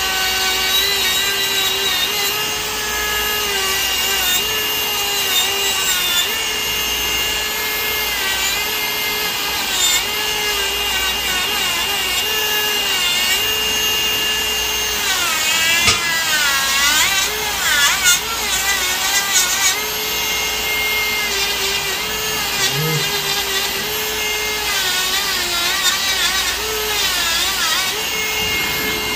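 Electric podiatry nail drill spinning a conical burr against thick fungal toenails to grind them down: a steady whine whose pitch sags again and again as the burr is pressed into the nail, wavering most in the middle.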